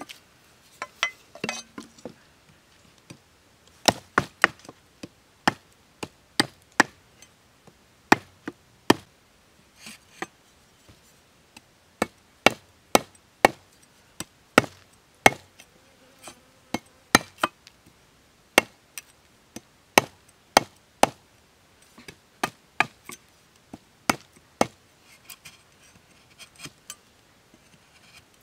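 Machete blade chopping into a peeled forked wooden stick resting on a log: many sharp wooden chops in irregular runs, about one or two a second, with short pauses between runs.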